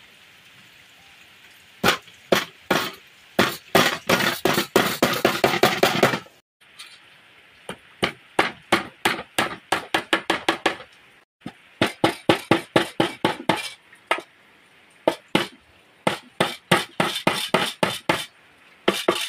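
Hammer blows on the end of a green bamboo spit, driving it lengthwise through a whole dressed duck for roasting. The sharp strikes come about four a second, in several quick runs with short pauses between them.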